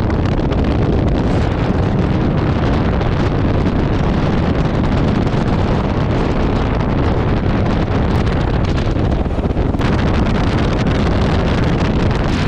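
Heavy wind buffeting the microphone over the steady running of a bass boat's Mercury outboard at speed, with a couple of sharp knocks about eight and ten seconds in.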